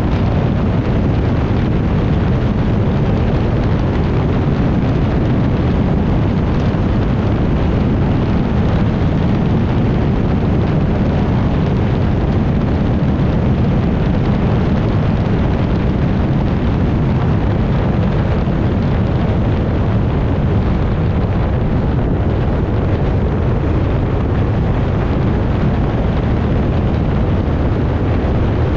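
Mercury 60R outboard engine running steadily at high speed, its pitch holding level, mixed with wind buffeting the microphone and water rushing past the hull of a small tunnel boat.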